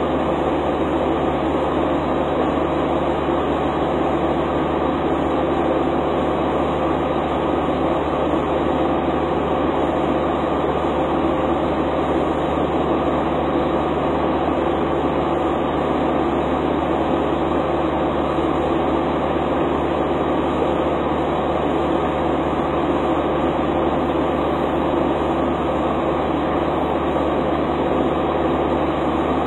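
A diesel truck engine idling with a steady, unchanging drone.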